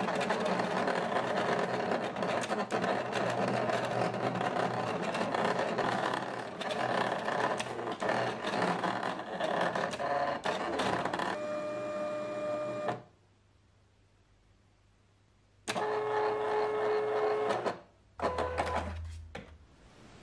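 Electronic sticker-cutting machine at work on a printed sticker sheet: its motors whirr and buzz with quick clicks as the blade carriage and rollers move the sheet back and forth. After about eleven seconds the motor gives steady whining tones. This is broken by a few seconds of silence, then comes another whine and a short burst.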